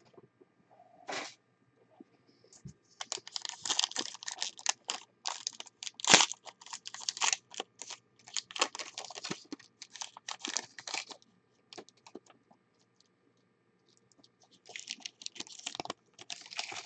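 Foil wrapper of a 2018 Plates & Patches football card pack being handled, crinkled and torn open by hand: irregular runs of sharp crackles and rips, with a quiet pause of a couple of seconds before a last burst of tearing near the end.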